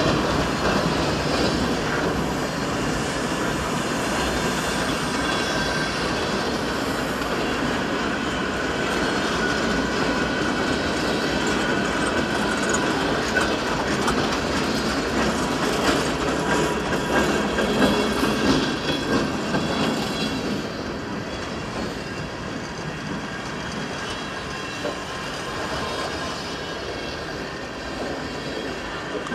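Freight train cars rolling past, steel wheels squealing thinly and clicking over rail joints in a steady rumble. The sound eases a little about two-thirds of the way through.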